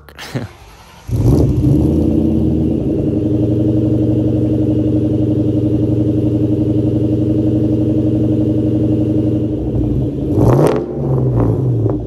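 Ford Mustang SVT Cobra V8 starting up about a second in, then idling steadily. It rises in pitch and level briefly near the end as the car begins backing out.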